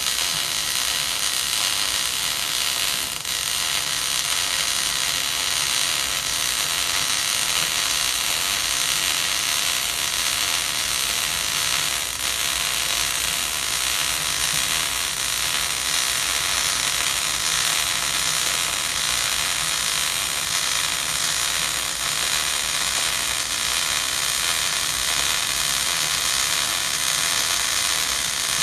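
MIG welding arc running in one unbroken bead, with a fast, even crackle and sizzle.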